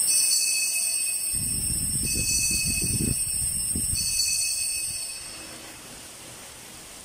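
Altar bells shaken by an altar server at the elevation of the host, a bright, high ringing in a few surges that fades out about five seconds in. The ringing marks the consecration.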